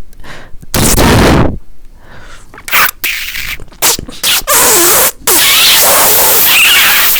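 Exaggerated, very loud breath blown straight into the microphone like a gust of wind: one blast about a second in, a few short puffs, then one long blast lasting about two and a half seconds near the end.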